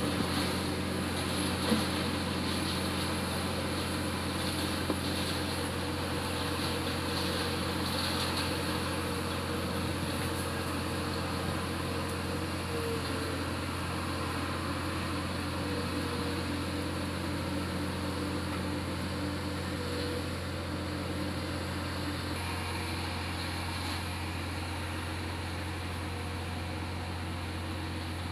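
Komatsu D70LE crawler bulldozer's diesel engine running steadily under load as it skids a log along a dirt track, growing a little fainter near the end as it moves away.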